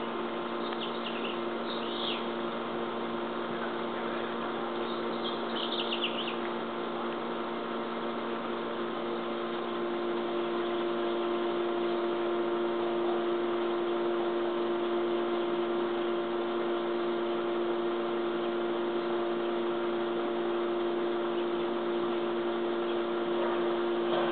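A steady hum runs throughout and grows a little louder about ten seconds in. A few short bird chirps come about one to two seconds and five to six seconds in.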